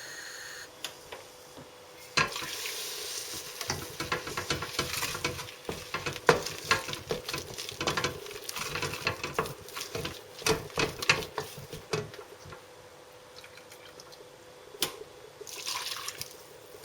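Hot milk poured into a pan of butter-and-flour roux, with a wire whisk clicking and scraping quickly against the pan as the béchamel is whisked. Another pour of milk comes near the end.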